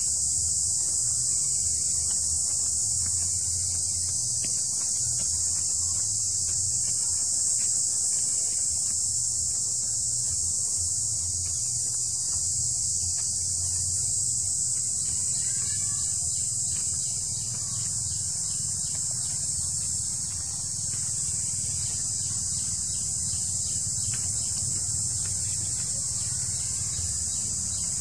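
Steady, high-pitched shrilling of an insect chorus, unchanging throughout, over a low rumble.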